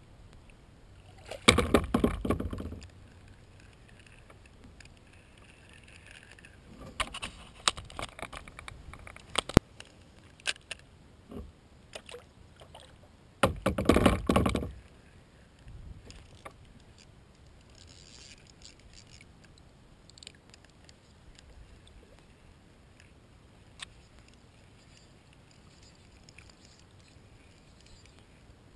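Knocks, scrapes and clicks from handling gear in a kayak, carried through the hull: two louder scraping bursts of about a second each, about two seconds in and again around fourteen seconds, with a cluster of sharp clicks in between.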